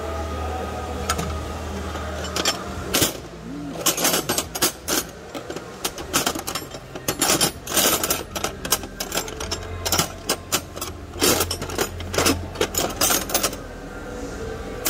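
Metal hand tools, sockets and wrenches, clinking and clattering in a tool cart as someone rummages through them, in a quick irregular run of sharp clacks. A low steady hum sits underneath.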